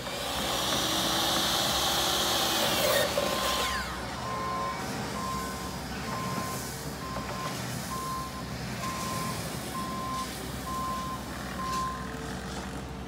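A DeWalt miter saw runs through a cut for about three seconds, then its blade winds down with a falling whine. A vehicle's reversing alarm follows, beeping steadily about once every 0.7 seconds and stopping about a second before the end, most likely from the Bobcat utility vehicle moving on the gravel.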